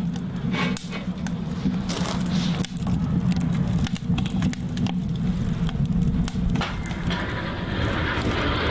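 Wood fire burning in a steel barrel stove: the split logs crackle and pop in sharp, irregular snaps over a steady low rumble.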